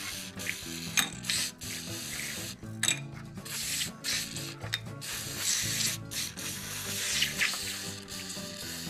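Aerosol carburetor cleaner sprayed in several short hissing bursts onto carburetor parts and jets in a metal tray, soaking them to dissolve dirt and clogs. Background music with a steady bass line plays underneath.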